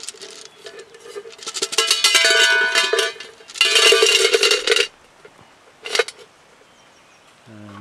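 Rocks being set into a stainless steel Zebra billy pot, clattering on the metal and leaving the pot ringing, in two bouts about two and four seconds in, then a single knock near six seconds.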